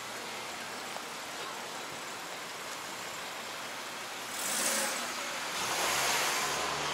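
Road traffic noise on a city street: a steady hiss of tyres, then two vehicles pass, one about four seconds in and a louder one with a low engine hum near the end.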